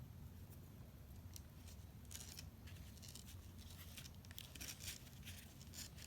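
Faint, quick snips and rustles of scissors cutting thin origami paper, coming in clusters from about two seconds in.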